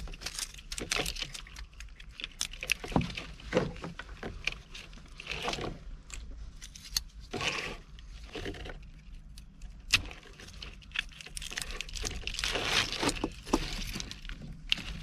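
Irregular rustling, scraping and clicking of automotive wires and corrugated plastic loom being tugged and worked loose from an old truck's wiring harness by hand, with a hand tool at the loom.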